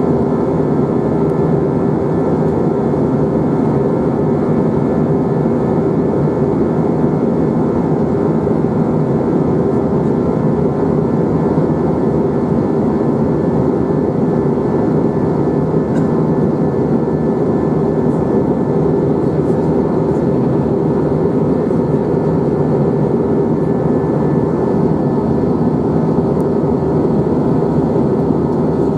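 Steady drone inside an Airbus A321 cabin in cruise, made by the jet engines and rushing air, with a faint constant hum running through it.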